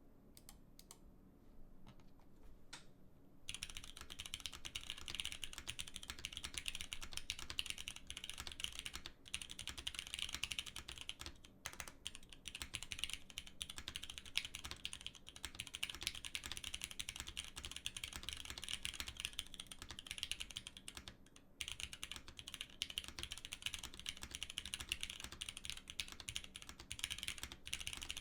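Typing on a GSK 910 aluminium 65% mechanical keyboard with Cherry MX Black linear switches on a carbon-fibre plate. A few single keystrokes, then fast continuous typing from about three and a half seconds in, with short pauses.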